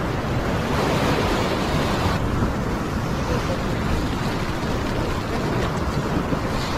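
Sea swell washing and foaming against the rocks in a steady surf, with wind buffeting the microphone.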